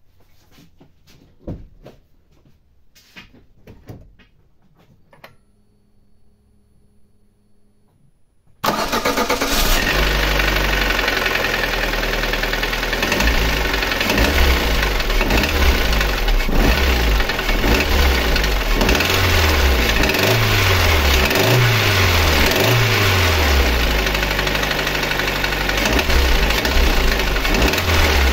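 A few clicks and a faint steady whine, then after about nine seconds the Lada Granta's 8-valve engine starts and runs, revved several times in the middle, with a ringing knock that the owner suspects comes from worn camshaft bearing bores in the head after long overheating.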